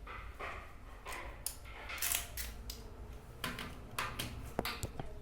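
Handling noise: short scrapes and rustles, with a few sharp clicks near the end.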